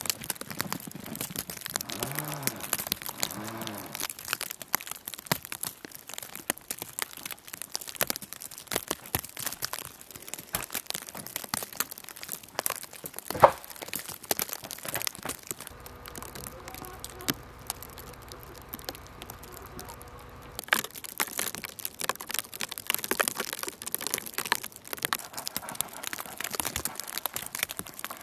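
Snow crunching and scraping as a blade clears a snow-covered wooden table, a dense irregular crackle with one sharp knock about halfway through. For a few seconds after the knock it drops to a quieter stretch with a faint steady hum.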